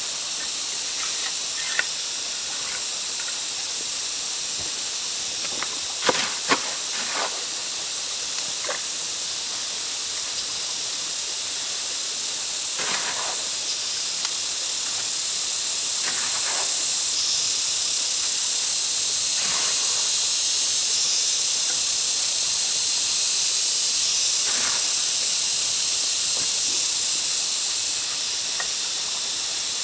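Steady high-pitched hissing that grows louder partway through, with a few scattered knocks; the sharpest pair comes about six seconds in.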